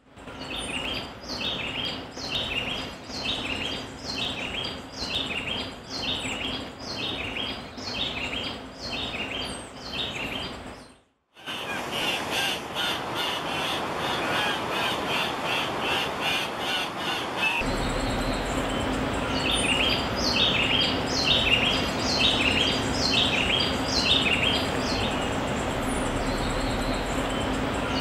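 Several male Andean cocks-of-the-rock calling: short, repeated calls two or three times a second, with a brief break about eleven seconds in.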